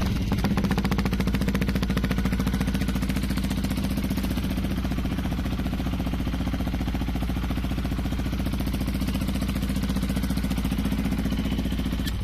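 Yamaha WR 125's single-cylinder four-stroke engine idling steadily.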